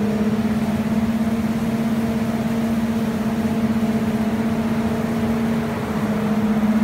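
Machinery running with a steady, even hum that holds one pitch with overtones and dips briefly near the end.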